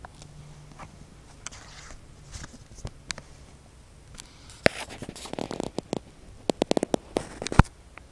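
Handling noise: scattered clicks and short scraping rustles as thin plastic phone cases and the camera are handled, ending in a quick run of clicks and one sharp, loudest click shortly before the end.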